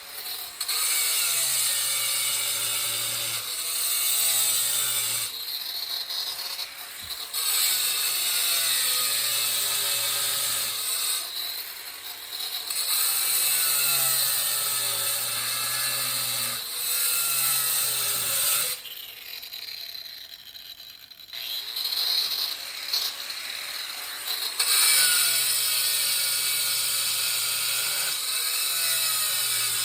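Angle grinder with a diamond blade cutting into stone tile in repeated passes, its pitch dipping as the blade bites and rising again as it is eased off. A longer break in the cutting comes about two-thirds of the way through.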